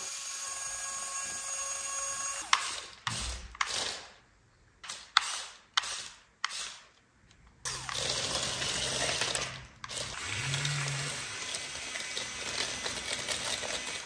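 Small mechanism whirring steadily, broken for a few seconds in the middle by a run of sharp clicks and snaps with short quiet gaps, then whirring again with a low hum.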